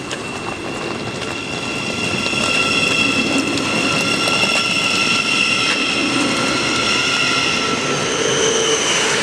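Class 700 Desiro City electric multiple unit pulling out and gathering speed past the platform. Its traction motors whine in several steady high tones over the rolling noise of the wheels, growing louder over the first three seconds.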